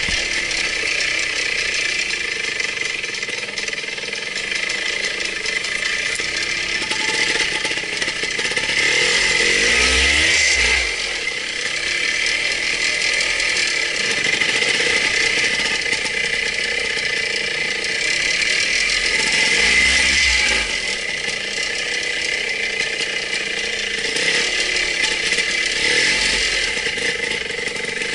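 Trial motorcycle's engine running at low speed as the bike is ridden through the section, rising in pitch twice as the throttle is opened, near ten and near twenty seconds in.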